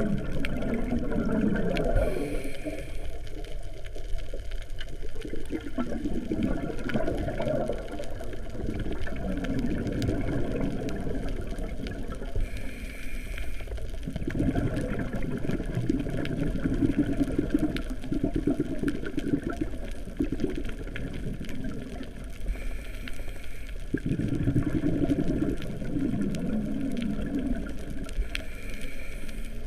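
A scuba diver's regulator heard underwater: a short hiss of inhalation about every ten seconds, each followed by a long bubbling exhalation.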